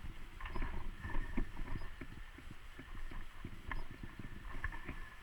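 Mountain bike rolling over a dirt single-track trail: a steady low rumble from the tyres, with many irregular knocks and rattles as the bike goes over bumps.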